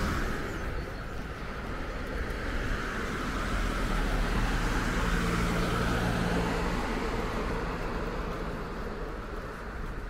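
Street traffic with a motor vehicle passing: a low engine hum swells about four seconds in and fades after about seven seconds.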